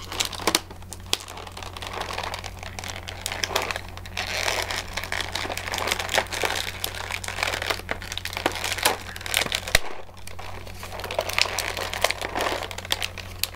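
Plastic packaging on a canister of mixed nuts crinkling and crackling as it is wrestled open, with many small clicks and snaps.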